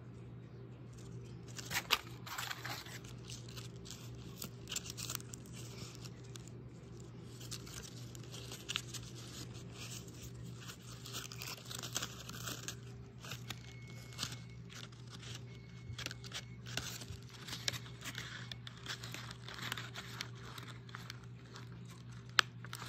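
Paper puppets being handled: irregular rustling and crinkling of paper, with a sharp tap about two seconds in and two near the end, over a steady low hum.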